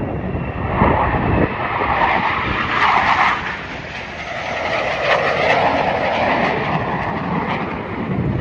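Jet aircraft flying past: a loud rushing noise that swells and fades, its tone sweeping down and back up.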